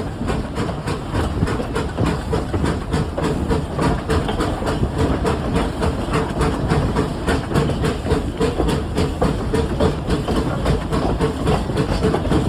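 Train running close by, its wheels clattering over the rails in a steady, fast rhythm.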